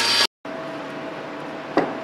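Table saw ripping a pine board, cut off abruptly; then a quieter steady hum of the saw running without cutting, with a short knock near the end.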